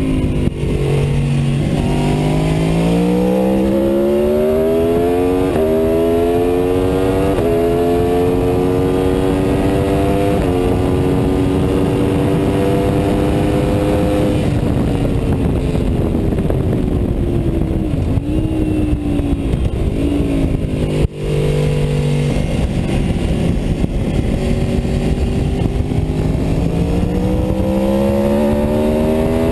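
Aprilia Tuono V4's V4 engine under hard acceleration: the revs climb and drop at each of several quick upshifts. The revs then fall away with a few short rises as the bike slows, a sharp knock comes about two-thirds of the way in, and the engine pulls up through the revs again near the end. Steady wind rush sits over the whole recording.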